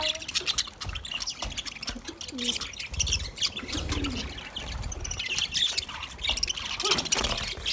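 Budgies chirping and chattering in a rapid string of short calls, with a lower call about four seconds in.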